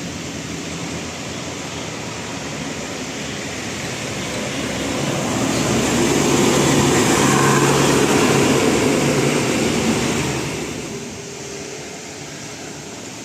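A large bus driving past: engine hum and road noise swell to a peak about seven seconds in, then fade away.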